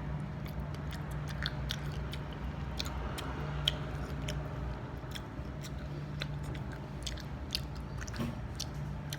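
A person chewing and biting food close to the microphone, with scattered crisp clicks and crunches of the mouth and food, the sharpest about three and a half seconds in. A steady low hum runs underneath.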